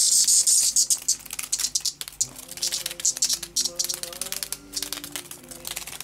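A cicada caught by a cat giving rapid, dry, high-pitched clicks and rasps, with a dense buzz in the first second, over background music with a melody.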